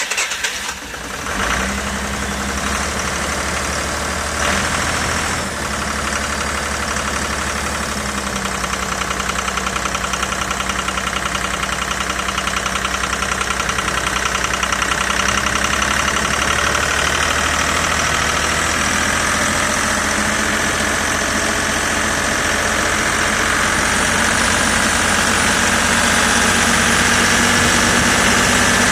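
Excavator diesel engine running steadily just after starting, growing a little louder over the last several seconds with a high whine coming up.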